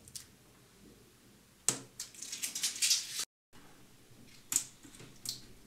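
Thin protective plastic film being peeled off a projector's touch-button panel and crinkling, starting with a sharp click a little under two seconds in and crackling for about a second and a half. A few light taps follow after a short break.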